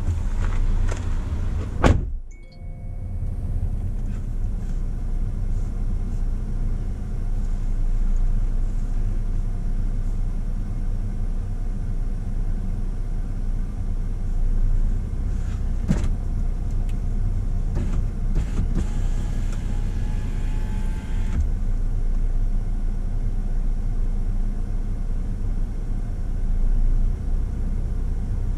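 A car door shuts with a thud about two seconds in, and the sound becomes muffled. After that there is a steady low rumble of the stopped car idling, heard from inside the closed cabin.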